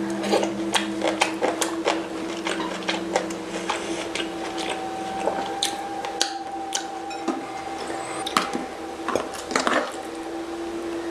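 Close-miked mukbang eating sounds: wet, squishy chewing with scattered sharp clicks and taps of utensils and dishes, over a steady low hum.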